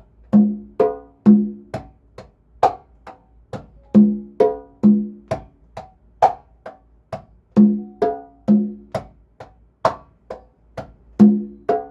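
Pair of congas played slowly by hand in the bachata derecho pattern. Heel, finger, slap and finger strokes on the high conga are followed by a low open tone, a high tone and another low open tone on the low and high congas. The cycle repeats about every three and a half seconds.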